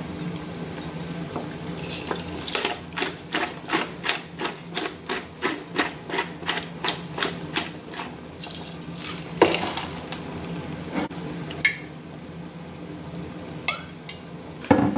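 Pepper mill being twisted over a glass bowl, a steady run of gritty grinding clicks, about three or four a second, for several seconds. A few single knocks follow as things are handled, over a low steady hum.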